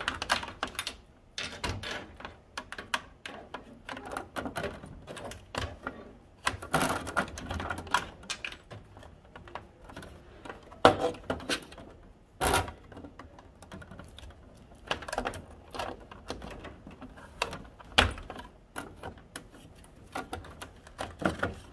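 Hard plastic parts of a ballot-box tabulator clicking, knocking and rattling irregularly as its power cord is fed around and its panels are handled, with a few sharper knocks standing out.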